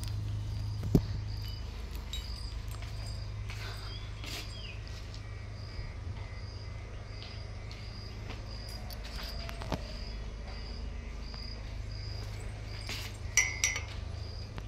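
A cricket chirping steadily in short, even pulses, nearly two a second, over a low steady rumble. A brief click about a second in, and a sharper, louder chirp-like sound near the end.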